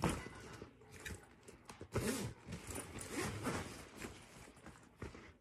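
Faint rustling and soft bumps of a fabric backpack being handled and turned over.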